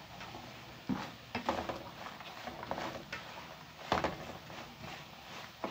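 Spatula stirring pieces of baladi bread toasting in ghee and oil in a pan: irregular scrapes and knocks against the pan, the loudest about four seconds in.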